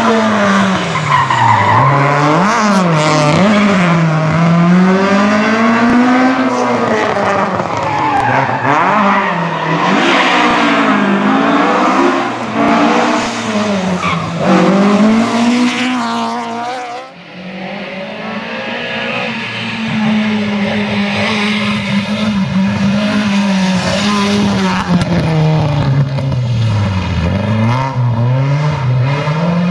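Ford Escort Mk1 historic rally car's four-cylinder engine revving hard through the bends, its pitch rising and falling again and again with gear changes and lifts off the throttle, with tyres squealing at times. The sound drops briefly about two-thirds of the way through, then the engine is heard again.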